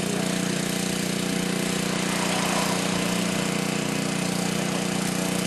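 A motor running steadily at one even pitch, a constant low drone.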